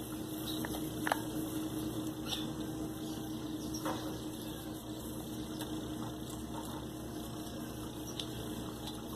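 A few faint clicks and light scratching as potting soil is poked and pressed into a cut plastic-bottle pot with a thin tool, over a steady low background hum.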